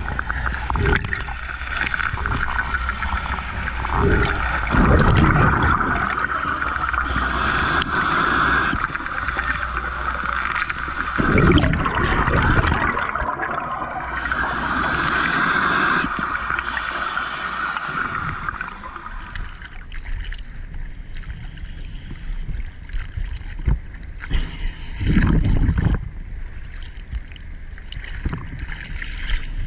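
Underwater gurgling and rushing of a scuba diver's exhaled bubbles during an ascent, with repeated surges as breaths are let out. About two-thirds of the way through the sound changes to the slosh and splash of surface waves against the camera after surfacing.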